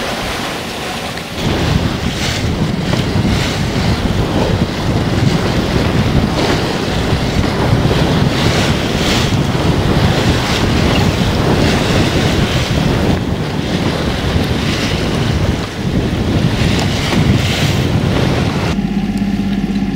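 Wind buffeting the microphone and waves rushing past the hull of a sailing yacht under sail in a 17–18 knot breeze. About a second before the end it cuts abruptly to the steady hum of the yacht's engine under motor, with quieter water.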